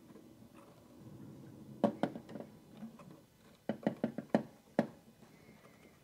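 Twist-on wire connectors being screwed onto solid copper house wires and the wires handled at a plastic switch box: faint rustling with a handful of sharp little clicks and knocks, one about two seconds in and a quick run of them around four seconds.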